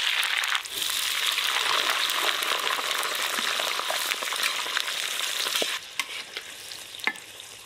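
French fries deep-frying in hot oil in an aluminium pot, the oil sizzling and bubbling hard just after the fries went in, while they are stirred with a metal spatula. About six seconds in the sizzle drops much quieter, with a few light clicks after.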